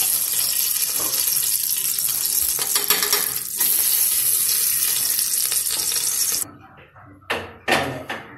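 Ghee sizzling as it melts in the hot base of a pressure cooker, a steady hiss that cuts off abruptly about six and a half seconds in. Two short knocks follow near the end.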